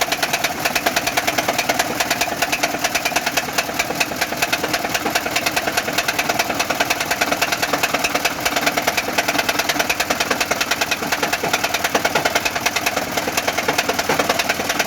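VAZ 21099 petrol engine idling with a steady, fast, regular knock from inside the engine. The knock is of unknown cause, in an engine that is also blowing smoke out of the dipstick tube.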